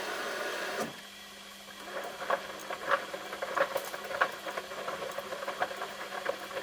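Samsung washing machine mid-cycle: the steady running of the drum stops about a second in. It leaves a faint low hum and light, irregular pattering clicks from inside the machine.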